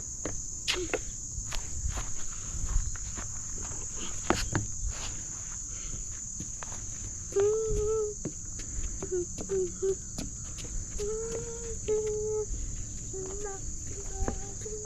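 Steady high-pitched chorus of insects, with scattered footsteps and scuffs. From about halfway come short, high calls from a child's voice.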